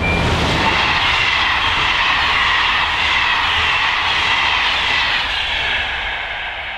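Intercités passenger coaches rolling past at speed on electrified main line: a steady loud rush of wheels on rail with a high ringing note over it. It fades near the end as the last coach goes by.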